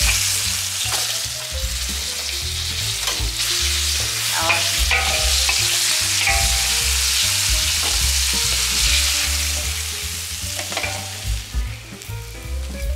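Tapioca-starch-coated chicken pieces deep-frying in hot oil during their second fry, a loud, steady sizzle that thins out and turns choppier near the end.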